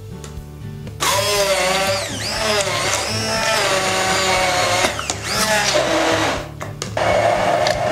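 Hand-held immersion blender starting about a second in and running in a tall beaker, puréeing avocado with olive oil and citrus juice into mayonnaise. Its motor pitch rises and falls as the blade works through the mix, dips briefly near the end and picks up again.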